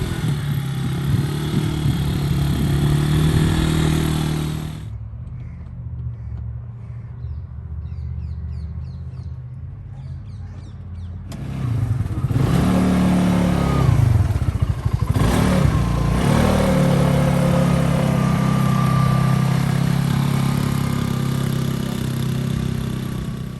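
A quad-bike (ATV) engine running, its pitch rising and falling as the throttle changes. For about six seconds in the middle it is quieter and muffled, then it revs up again and keeps running.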